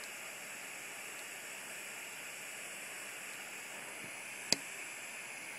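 Butane soldering iron with a blowtorch tip hissing steadily as it heats a chip's solder joints. A single sharp click comes about four and a half seconds in.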